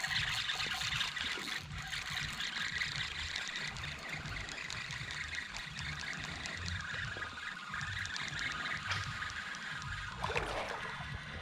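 Creek water trickling and running steadily over a shallow riffle.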